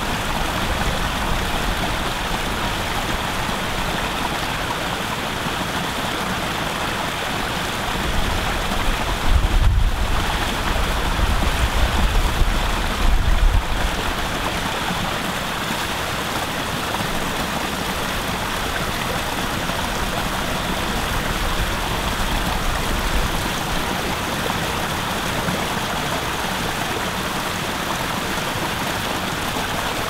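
Small rocky stream rushing steadily over stones and a little waterfall. Wind rumbles on the microphone twice, about a third of the way in and again a few seconds later.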